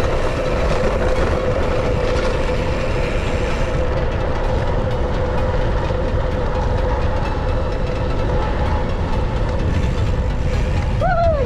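Wind rushing over the handlebar-mounted microphone and tyre noise from a mountain bike rolling down a steep road. A steady whining tone runs underneath, and a short falling squeal comes near the end.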